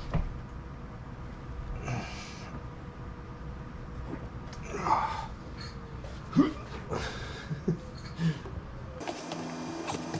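Hands and tools working a rubber windshield seal into its groove: scattered knocks, clicks and rubbing, with a couple of breaths or grunts, over a low steady rumble that cuts off near the end.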